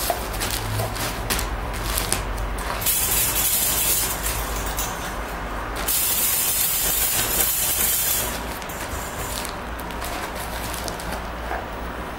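Plastic bags crinkling and rustling as a raccoon dog noses and digs through them: a run of crackles, with two long stretches of loud rustling, about three and six seconds in.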